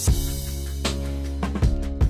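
Instrumental background music with a drum kit over sustained bass and chord notes. A loud drum hit opens it and further hits follow about every second.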